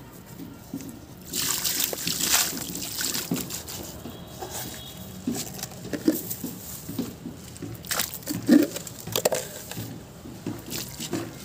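Crumbled sand-cement is poured into a basin of water, making a rush of gritty sliding and splashing about a second in. Scattered soft pops and trickles follow as the soaked mound crumbles.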